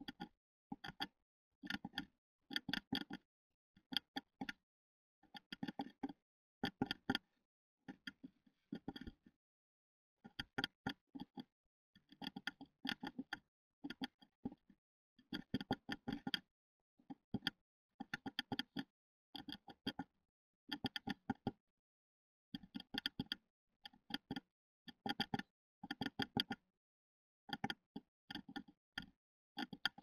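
Great tit tapping on the wood inside a wooden nest box: bursts of quick, sharp taps, about one burst a second, each tap ringing hollow in the small box.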